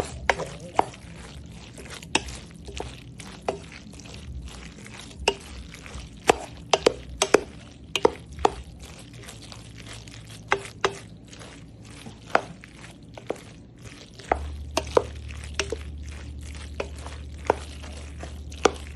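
A utensil clicking and knocking against a bowl while ingredients are stirred, in irregular sharp taps about one or two a second. A low steady hum comes in about three quarters of the way through.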